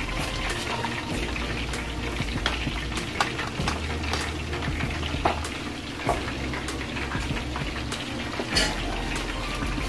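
Chicken wings deep-frying in hot oil: a steady sizzle with scattered crackling pops. Sharp clicks of a spoon and spatula stirring sauce in a pan beside it are mixed in.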